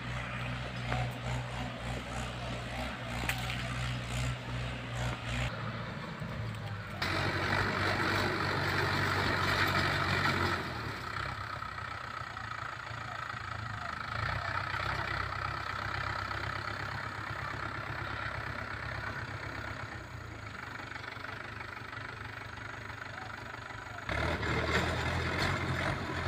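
Tractor engine running steadily while pulling a rotary tiller through a ploughed field. The sound changes abruptly several times.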